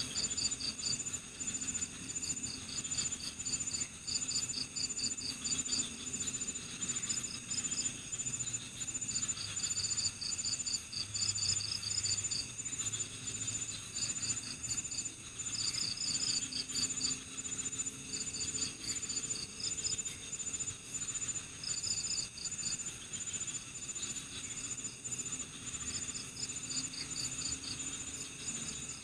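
Night-time chorus of crickets and other insects: one high, even trill that never stops, with short bursts of rapid chirping breaking in every second or two over it.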